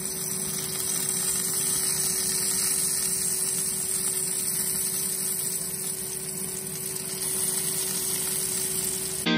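JJ George B.B. Prime propane salamander broiler's burner running full, a steady hiss with a low hum under it, as thick steaks sear beneath it.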